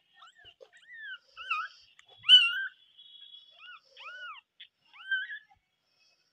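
Newborn kittens mewing: a string of short, high-pitched mews that each rise and fall, the loudest a little over two seconds in.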